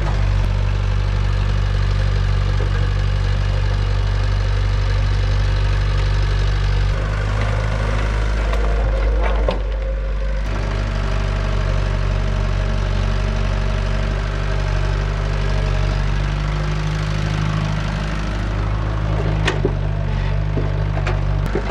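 Kobelco mini excavator's diesel engine running steadily under load while its toothed bucket digs and scrapes through rocky soil, with a few sharp knocks and crunches of stone against the steel bucket.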